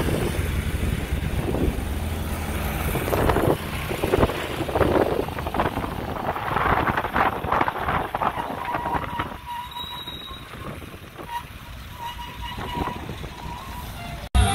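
A moving motor vehicle's engine running, with road and wind noise, heard from on board. It gets quieter about nine seconds in, when a thin steady whine comes up over it.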